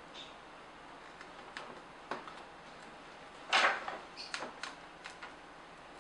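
Small screwdriver prying at the glued plastic housing of a Nikon SB900 speedlight: scattered light clicks and scrapes, with a short louder burst of scraping about halfway through, followed by a quick run of clicks.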